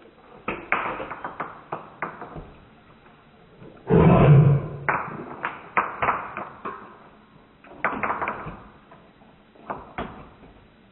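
Dog eating dry kibble from a stainless steel bowl: a run of sharp crunches and clinks against the metal, broken about four seconds in by a loud growl of almost a second while it eats.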